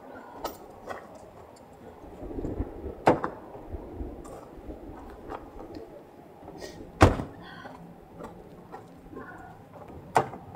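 Doors of a Citroën hatchback shutting and opening: three heavy thunks, about 3 seconds in, about 7 seconds in (the loudest) and just after 10 seconds, with lighter knocks and rustling between.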